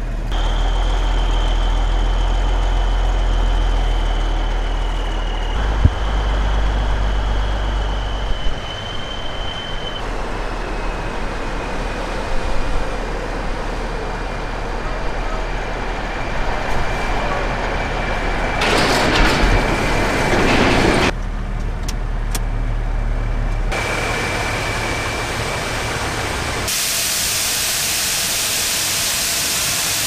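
A semi truck's diesel engine running, heard from inside the cab, with a loud burst of hiss about two-thirds of the way through. Near the end comes a steady rush of shelled corn pouring from the hopper-bottom grain trailer through the dump-pit grate.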